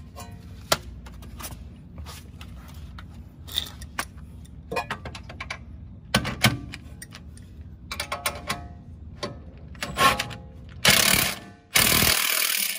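Scattered clicks and knocks of tools against the suspension parts, then a Milwaukee cordless impact wrench hammering in two short bursts near the end as it tightens a rear suspension arm bolt.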